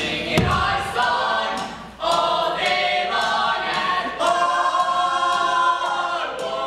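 A small group of student singers performing a cappella in harmony, holding sustained chords, with short clicks scattered through and a low thump about half a second in.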